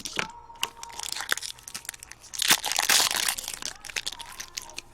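Crinkling and rustling of trading-card packaging and cards being handled, with a few sharp clicks and a louder stretch of crinkling about halfway through.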